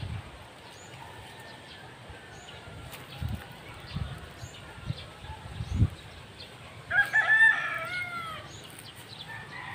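A rooster crows once, a call of a little over a second about seven seconds in, and it is the loudest sound here. Before it come a few dull low thumps.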